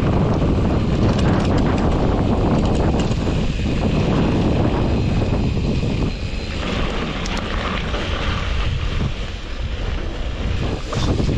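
Wind rushing over an action camera's microphone as a mountain bike rolls along a dirt road, with scattered small rattles and clicks. It eases somewhat about six seconds in.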